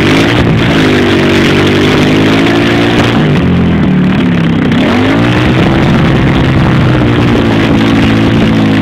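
Towing vehicle's engine revving hard and unevenly, its pitch rising and falling with a sharp dip about four and a half seconds in, over a constant loud rushing noise.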